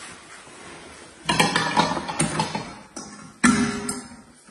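Knocks and clatter of stainless steel basin covers being handled on a table, with a louder knock and a short ringing note about three and a half seconds in.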